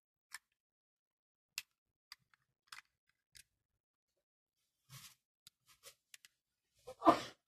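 Trodat 4810 self-inking date stamp handled, its plastic body and rubber date bands clicking as they are turned: a scatter of light clicks, growing busier after the middle, then one louder clatter near the end.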